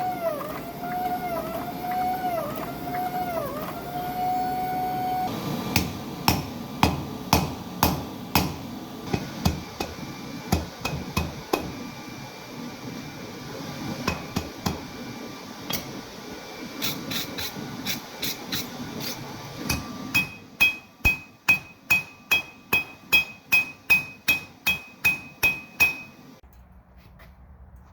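Hand forging on an anvil: hammer blows on hot steel, about one or two a second, turning into a quicker run of about three a second with a clear ringing note from the anvil, then stopping shortly before the end. Before the hammering starts, about five seconds in, a wavering tone rises and dips over and over.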